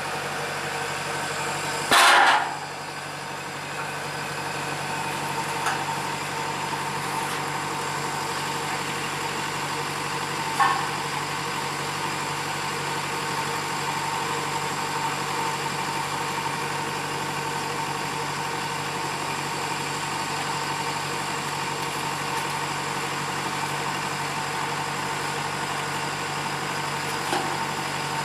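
Diesel engine of a Kubota DCX 100 rice combine harvester running steadily, with a brief loud noise about two seconds in and a smaller one near the middle.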